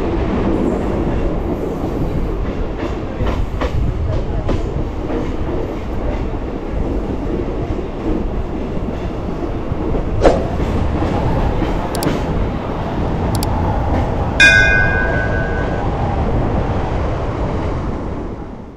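Steady rumble and wheel clatter of a moving train heard from on board. A train horn sounds near the end, one blast of about a second and a half.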